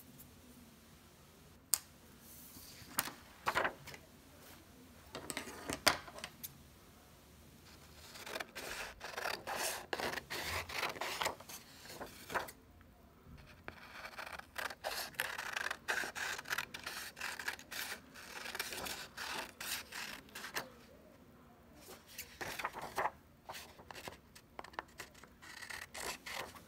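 Scissors cutting construction paper in three runs of quick, crisp snips with two short pauses between them. A few separate sharp clicks come in the first six seconds, before the cutting starts.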